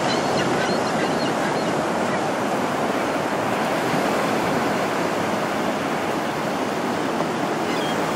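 Small, clean ankle-to-shin-high surf breaking and washing up the beach, a steady, even rush of water.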